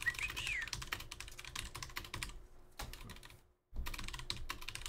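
Typing on a computer keyboard: quick irregular runs of key clicks, broken by short pauses about halfway through.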